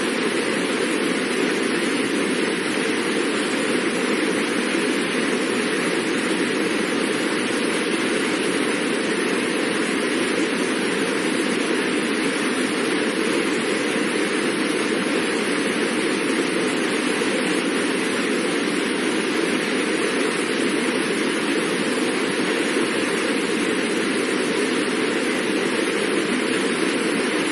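Fast-moving water rushing in a steady, even hiss that neither rises nor falls.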